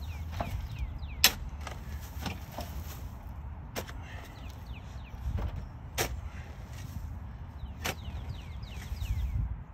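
Round-point shovel digging into soil and sod: four sharp strikes of the blade, about two seconds apart, with the loudest about a second in.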